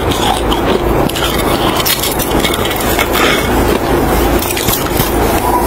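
Packed snow being bitten and chewed, a dense run of crisp crunches.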